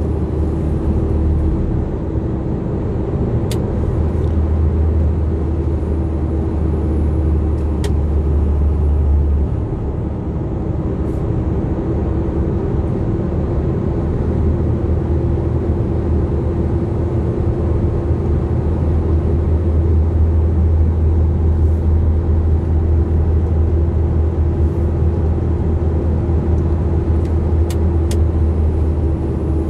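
Container truck running at road speed, heard from inside the cab: a steady engine and road drone with a deep hum that eases for a few seconds about nine seconds in, then returns.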